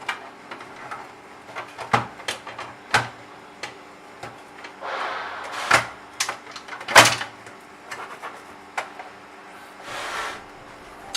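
Hotel door lock parts being handled and fitted against a door: scattered clicks and knocks, the loudest about seven seconds in, with short scraping noises around five and ten seconds in.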